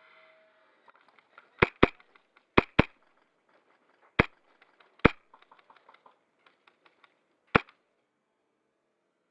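Airsoft guns firing: seven sharp pops, the first four in two quick pairs, then single shots, with fainter distant shots and BB clicks between.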